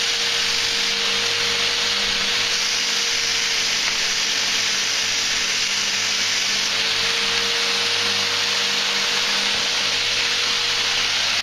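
Electric power tool buffing the knife's antler handle, running steadily with a loud, even hiss and a low hum. It stops suddenly right at the end.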